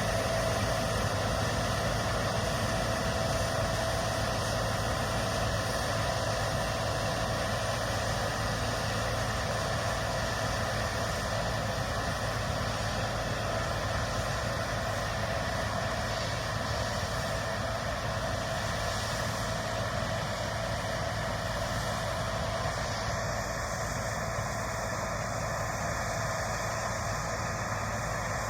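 Massey Ferguson Fortia rotary combine running steadily during the canola harvest: a constant machine drone with a steady whine and no change in speed.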